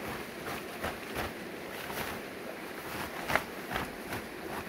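River water running steadily, with irregular sharp clicks on top, the loudest about three seconds in.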